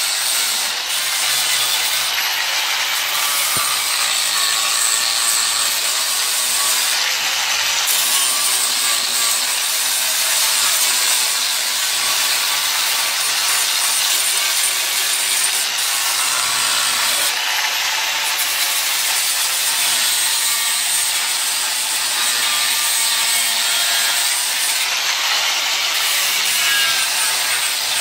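Angle grinder cutting the steel at a Lada's door pillar, running steadily under load with its pitch shifting a little as it bites. It is cutting away door hinges that have rusted through.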